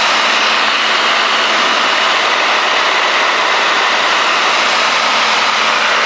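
Steady in-flight cabin drone of a Cessna 210D: its six-cylinder Continental engine and propeller at cruise power with rushing air, an even hiss with a faint low hum under it.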